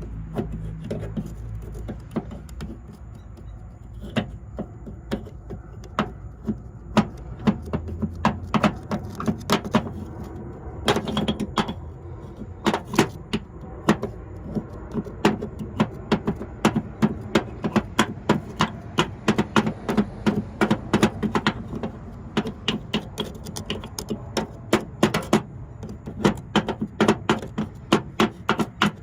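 Metal tool scraping and picking hardened gunk out of a Stripmeister wire stripper: many short, sharp scrapes and clicks, irregular, a few a second.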